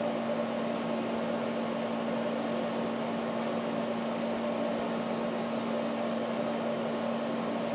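Steady background hum of a running appliance: a constant low tone over an even hiss.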